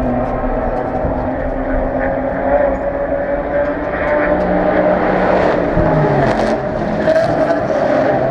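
Race car engines running steadily in a pit lane, with one engine's pitch dipping about six seconds in. Several short, sharp high noises come in the second half.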